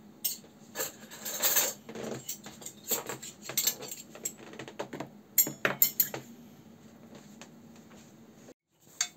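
Cutlery and dishes clinking and knocking in quick, irregular clicks, which thin out after about six seconds.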